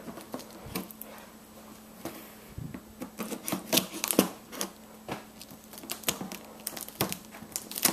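Scissors cutting through the packing tape on a cardboard box, with fingers picking and scraping at the tape and cardboard: an irregular run of sharp snips and clicks, the loudest cluster about four seconds in.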